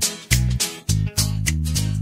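Instrumental backing track of a Russian chanson song, with no vocal line: a bass line stepping between notes under a beat of sharp percussive hits.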